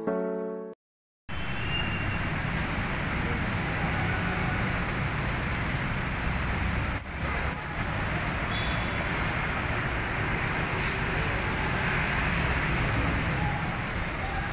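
Brief end of piano music, cut off about a second in, then steady city traffic: a continuous wash of car, motorcycle and jeepney engines and tyres from a busy intersection.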